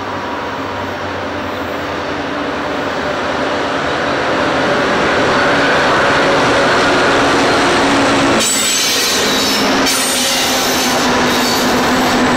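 The diesel locomotives of a loaded grain train approach and pass, their engines growing louder over the first few seconds. From about eight seconds in, high-pitched squealing of steel wheels on the rails comes in over the engine noise.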